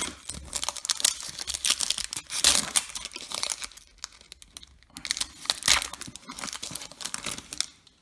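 Foil wrapper of a trading-card pack crinkling and tearing as it is handled, in irregular crackly bursts, loudest about two and a half seconds in and again near six seconds.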